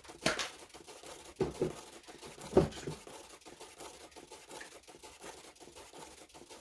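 Small objects handled on a work table: three short clacks with light rustling, about a second apart in the first three seconds. Most likely paint containers being closed up.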